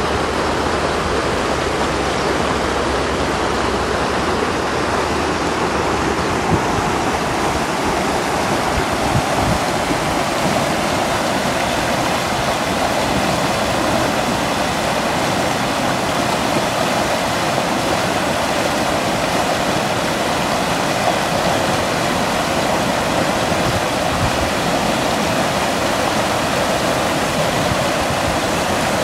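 Muddy floodwater rushing through a swollen wadi over stones and scrub: a steady, loud rush of water.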